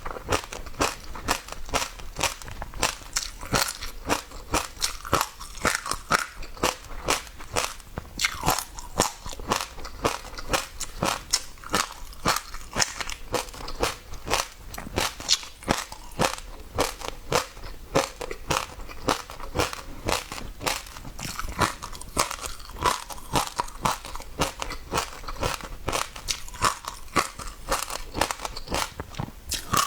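Passionfruit seeds being bitten and chewed close to the microphone, a fast, steady run of sharp crunches and pops, several a second.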